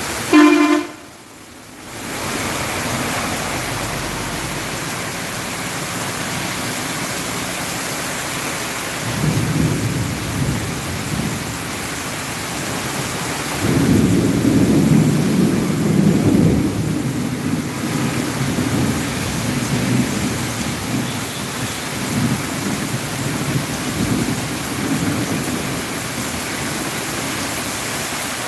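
Heavy rain falling steadily on the street and parked cars. Thunder rumbles low about nine seconds in, then again louder from about fourteen seconds for several seconds. A brief loud sound comes right at the start, followed by a drop lasting about a second.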